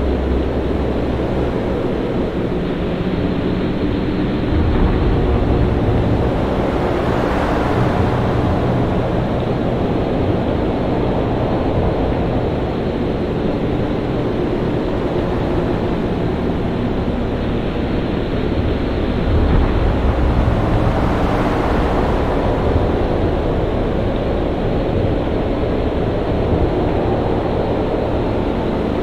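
Storm at sea: a steady rush of wind and heavy surf over a deep rumble, surging louder about seven seconds in and again about twenty seconds in.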